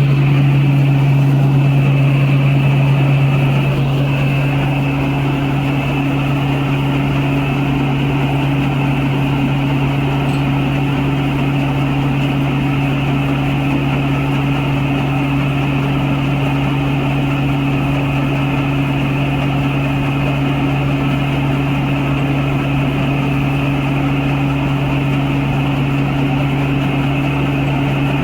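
Rice combine harvester's engine running steadily with a continuous low drone, easing slightly about four seconds in and then holding even.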